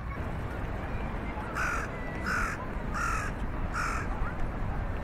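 A crow cawing four times in an even series about three-quarters of a second apart, starting about a second and a half in, over a steady low rumble.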